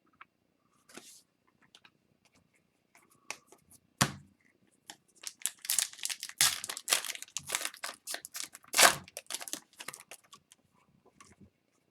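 Foil trading-card pack being torn open and its wrapper crinkled, with a single knock about four seconds in and a dense run of crackling from about five seconds in.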